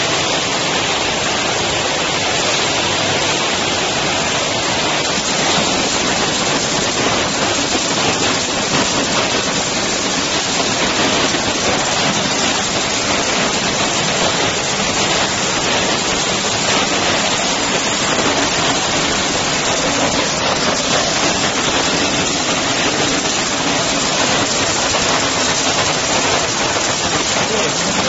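KM 60 cashew colour sorting machine running: a steady, even rushing hiss like rain.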